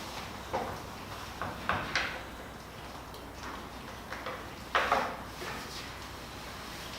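A handful of short clicks and light knocks, as of hardware being handled: several in the first two seconds and a louder pair about five seconds in.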